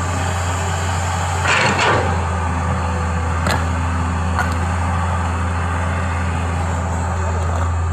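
Excavator's diesel engine running steadily with a deep, even hum, with a short scraping clatter about a second and a half in and a couple of sharp knocks a little later.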